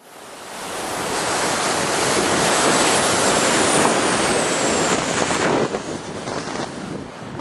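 Wind rushing hard over a camera microphone. It swells up over the first second, holds loud, then eases a little and flutters after about five and a half seconds.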